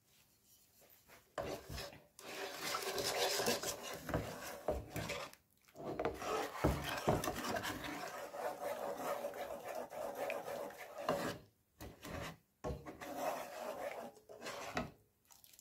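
Wooden spatula scraping and rubbing across the bottom of a nonstick frying pan as a sugar syrup is stirred. The scraping strokes start about a second and a half in and come in a run with a few short pauses.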